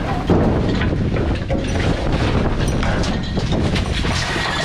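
Scrap metal rattling, scraping and clattering inside a metal dumpster as it is raked about with a piece of scrap, a continuous run of many small knocks.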